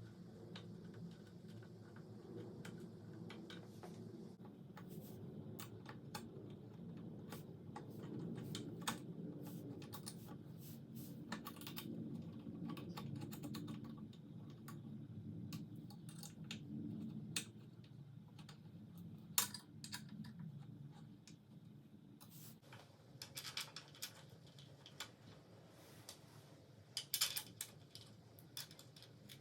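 Irregular light clicks and taps of small parts or packaging being handled, over a low steady hum, with a few sharper clicks near the end.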